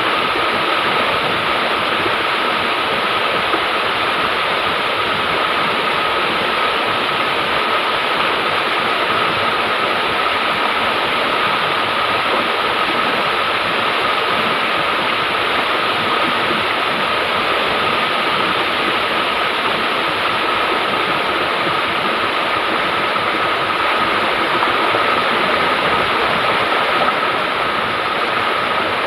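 River water rushing steadily over rocks, an unbroken hiss.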